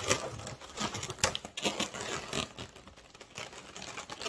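Latex modelling balloons rubbing and squeaking against one another as a thin balloon is wound and knotted around a bundle of balloon stems, heard as irregular short rubs and clicks.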